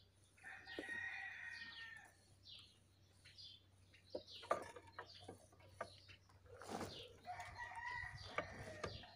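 A rooster crowing twice, each crow about two seconds long, one early on and one near the end. Light clicks of wire being handled come in between.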